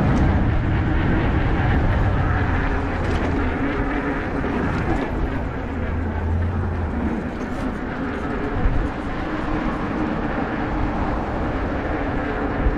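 Wind rushing over the microphone while riding an e-bike: a steady low rumble, with a faint even hum underneath.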